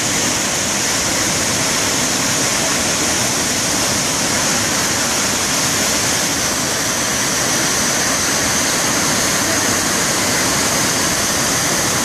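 Waterfall swollen with heavy rain, its floodwater rushing and churning over rock in a loud, steady roar of white noise.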